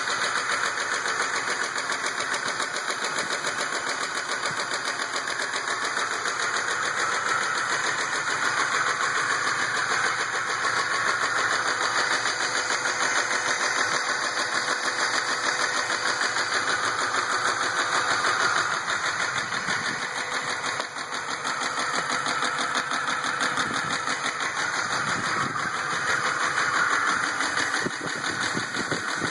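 2004 Ram 1500 engine running with a rapid, even knock: the engine knock the owner is recording.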